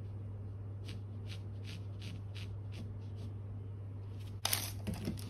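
Pencil scratching across textured canvas in short, even strokes, about two to three a second. About four seconds in, a louder rustle follows.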